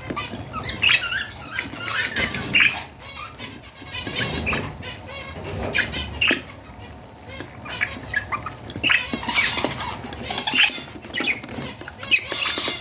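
Baby budgerigars making quick, rasping chirps over and over, typical of chicks begging while being fed soft food, with light rustling and clicks among them.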